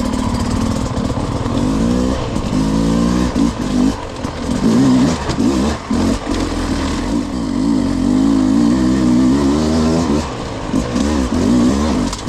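Enduro dirt bike engine revving up and down over and over, its pitch rising and falling with constant throttle changes.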